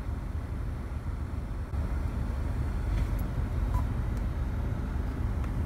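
Steady low rumble inside a car's cabin, a little louder about two seconds in, with a few faint short clicks three to four seconds in.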